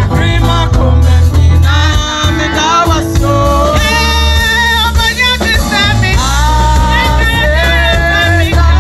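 Live Ghanaian gospel song: several women singing together through microphones over an amplified band with a heavy bass line.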